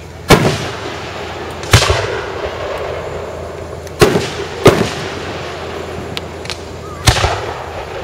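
Aerial fireworks shells bursting close by: five loud booms, each trailing off in an echoing rumble, with the two in the middle coming less than a second apart.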